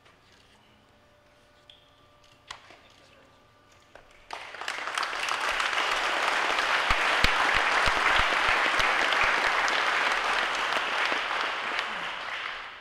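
Audience applause breaks out suddenly about four seconds in and goes on for about eight seconds, tapering off near the end, with a few closer, sharper claps among it. Before it there are only a few faint clicks.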